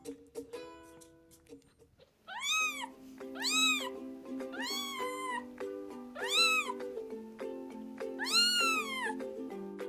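A kitten meowing five times, each high meow rising and then falling in pitch, starting about two seconds in. Background music with plucked notes plays throughout.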